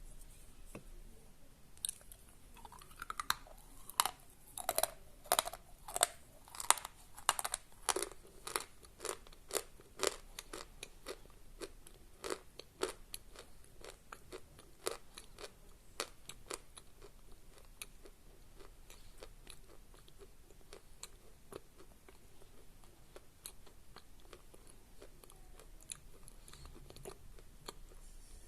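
Pieces of Khrapovsky chalk being bitten and chewed, crunching. Loud, crisp crunches come thick and fast from about two seconds in, then thin out after about thirteen seconds into quieter, sparser crackles: the crunch is short-lived, dry at first until the chalk soaks through.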